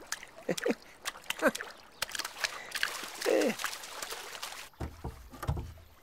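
River water splashing and sloshing around a floating stick, with a few short falling grunt-like voice sounds. Some low thuds come near the end.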